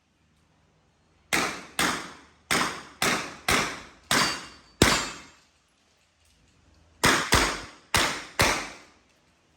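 Handgun shots in quick strings: seven shots about half a second apart, a pause of about two seconds, then four more.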